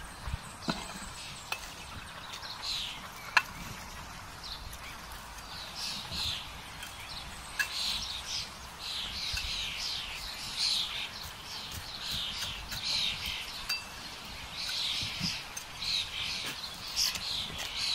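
Woodland birds singing, a stream of rapid high chirping phrases that grows busier from about six seconds in. A few sharp clicks early on come from a shovel knocking the burning logs of a campfire.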